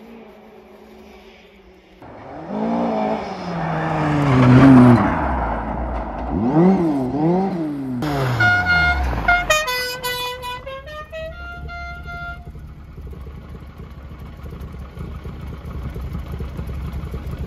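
Volvo 240 estate car engine revving up and down as the car drives in, then its horn tooting a short tune of several notes of different pitch, after which the engine settles to a low idle.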